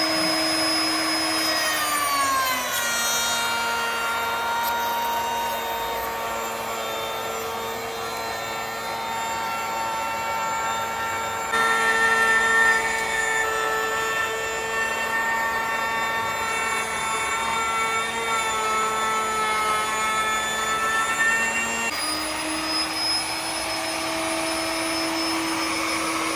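Moonlight aluminium-body router, mounted under a woodworking machine's table, running at speed and cutting a profile along a wooden plank. Its whine drops in pitch about two seconds in as the bit bites into the wood under load, holds lower through the cut, and rises again near the end as the wood clears the bit.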